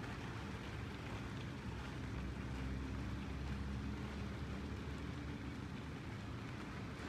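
Mince and minced vegetables sizzling in a frying pan, a steady hiss with a low hum underneath.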